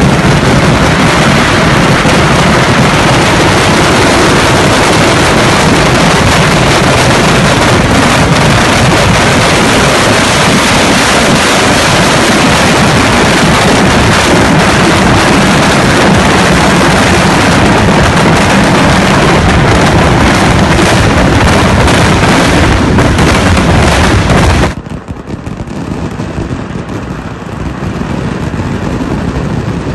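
Kerala temple fireworks (vedikkettu): massed ground-level firecrackers going off in an unbroken rapid barrage, so loud they overload the microphone into a solid wall of noise. Near the end it drops suddenly to a quieter, more distant barrage.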